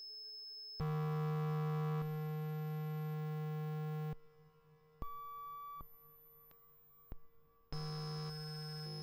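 Kinetik Laboratories GORT The Robot step-pulse drone synthesizer playing clusters of steady electronic tones that jump abruptly to a new set of pitches every second or two as its sequencer steps slowly. Some steps are louder than others, and two of them in the middle are much quieter.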